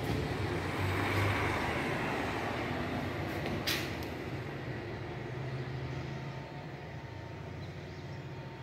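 Motor vehicle traffic: a low engine hum and road noise that swell about a second in, then slowly fade, with a brief sharp hiss about four seconds in.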